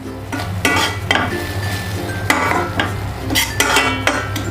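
A spoon stirring and scraping thick cooked tomato-and-onion masala in a frying pan, with about six short scrapes and clinks against the pan and a light sizzle underneath.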